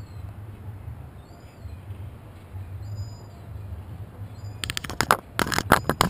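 Low steady rumble with faint high whistling glides, then from about two-thirds through a rapid run of sharp knocks and taps on the GoPro's housing.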